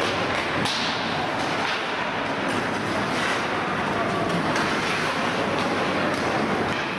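Hockey game sound in the rink: a steady wash of noise with voices and several sharp knocks from play.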